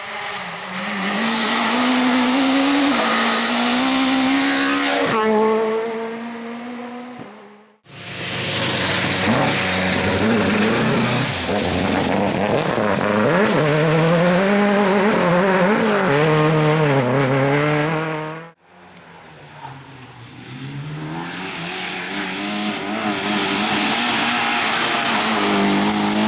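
Race car engines at high revs in three separate clips that cut off abruptly, about a third of the way in and again about two-thirds in. The engine pitch climbs and drops with throttle and gear changes, with tyre squeal. In the last clip a car comes closer and grows louder.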